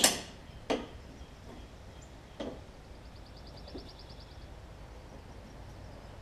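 Metal clanks and knocks from fitting a replacement self-propel transaxle and its mounting bolts under a push mower's deck: a sharp clank at the start, smaller knocks about a second and two and a half seconds in, then a quick run of faint ticks.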